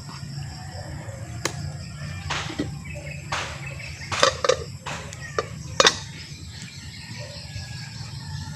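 Several sharp knocks and clatters, loudest about four and six seconds in, over a steady low hum.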